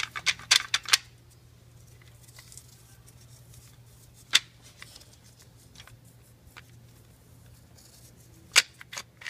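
Sharp metallic clicks and clinks of a Ford 5.4 Triton V8's timing chain, moved by a gloved hand against its guides with the engine stopped: a cluster in the first second, one about four seconds in, and a few more near the end. The chain has a lot of slack, which the owner puts down to a bad tensioner or a stretched chain.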